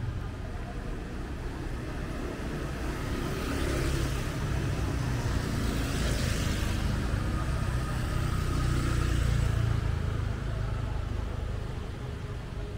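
Road traffic: a steady low engine rumble, with a vehicle's tyre and engine noise swelling as it passes close by around the middle, and another rise in the rumble a little later.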